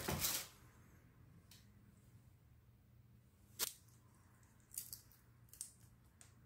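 A ceramic plate set down with a short clatter, then a few sharp little clicks in the second half as raw red shrimp shells are cracked and peeled off by hand.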